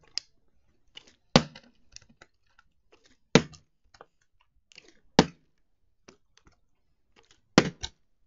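Plastic water bottle being flipped and landing again and again on a board, a sharp knock about every two seconds. Near the end it lands badly and clatters over in three quick knocks.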